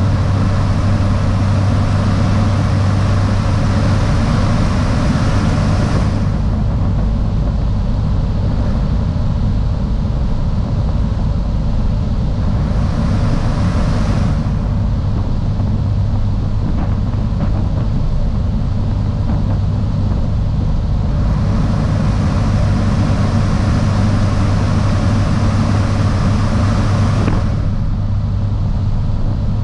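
Luscombe Observer light aircraft's engine and propeller droning steadily in flight, with rushing wind over the microphone. The wind hiss swells and fades several times.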